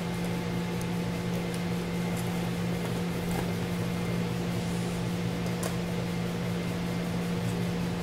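A steady low hum with an even hiss behind it, and a few faint clicks.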